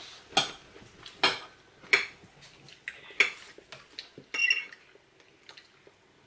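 Knives and forks clinking and scraping on ceramic dinner plates while food is cut: sharp clinks about once a second, then a brief ringing clink about four and a half seconds in, after which it goes quiet.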